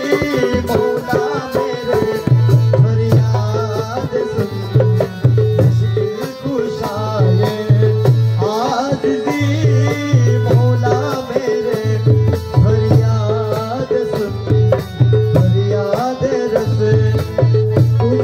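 Instrumental interlude of a Bengali devotional song: harmonium playing a melody over a barrel drum beating a repeating pattern of deep strokes, the drum beat coming in strongly about two seconds in.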